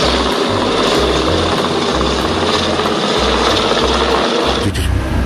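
Large helicopter hovering low: steady rotor and turbine engine noise that cuts off abruptly near the end.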